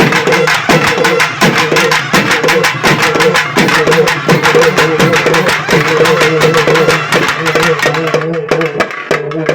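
Urumi melam drum ensemble playing: urumi hourglass drums rubbed with a stick to give a wavering, droning wail ('alaral') over rapid drum strokes.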